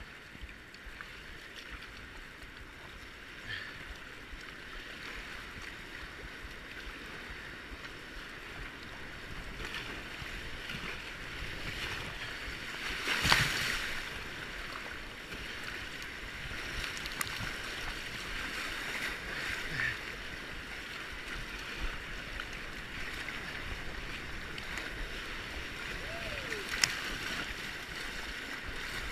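Whitewater rapids rushing steadily, slowly growing louder, with a sudden loud burst about halfway through and a smaller sharp one near the end.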